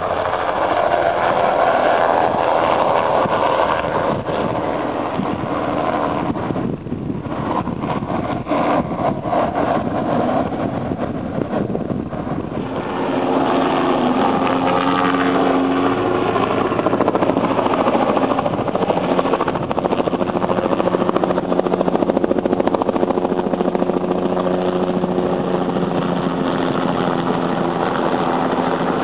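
Bell 206 JetRanger helicopter flying low: the beat of its two-blade main rotor over the whine of its Allison 250 turboshaft engine. The sound eases for several seconds after the first pass, then grows louder and steadier as the helicopter comes back and passes close overhead near the end.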